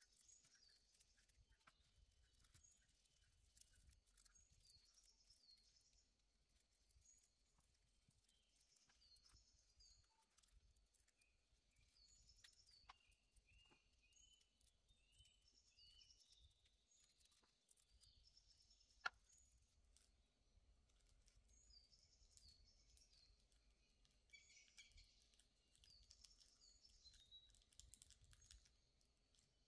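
Faint, high chirps of small birds in short repeated groups, with the soft crinkles and ticks of nail foil being peeled and handled, and one sharp click about two-thirds of the way through.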